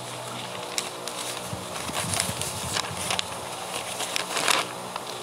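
Paper rustling as the pages of a workbook are turned and handled: a few short, sharp rustles, the loudest near the end, over a faint steady hum.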